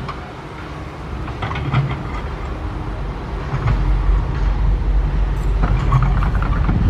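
SANY SY135F excavator's diesel engine working under load, easing off at first and then building up strongly about halfway through, with scattered knocks and scrapes from the machine at work.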